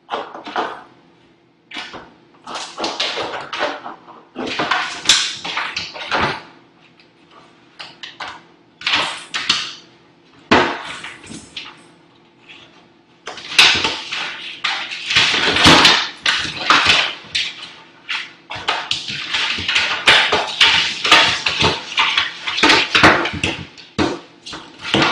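A dog scrambling up out of a stainless-steel kitchen sink: claws scraping and clattering against the sink, counter and cabinets in irregular bursts of scrabbling and knocks. A faint steady hum runs underneath.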